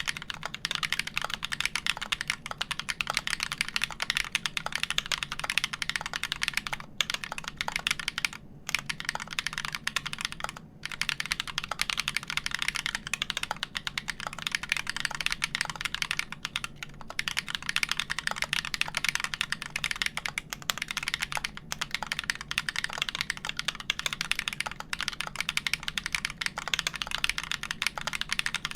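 Fast, continuous typing on a custom mechanical keyboard in a DOMA case, with Everglide Dark Jade Black switches on a wood plate, split 63.5 g slow springs, Tribosys-lubed switches and GMK keycaps. A few brief pauses break up the typing.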